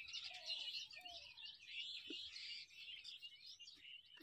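Faint, dense chorus of small birds chirping continuously, many overlapping short calls, with a few soft low knocks.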